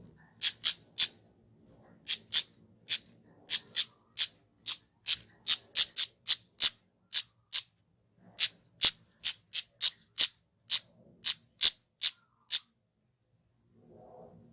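Kemade flowerpecker calling: a run of short, sharp, high-pitched notes, two or three a second at uneven spacing, that stops shortly before the end, followed by a faint rustle.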